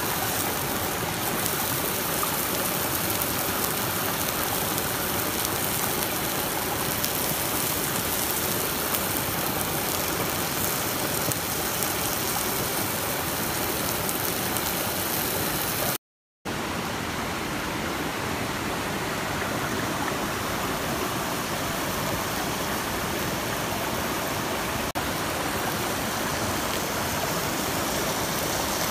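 Steady rush of a nearby stream flowing over rocks, an even hiss of running water. It cuts out completely for a moment about halfway through.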